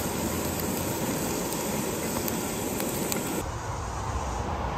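A quesadilla frying in oil in a nonstick pan over a camp stove: a steady sizzling hiss with faint crackles, which drops and turns duller about three and a half seconds in.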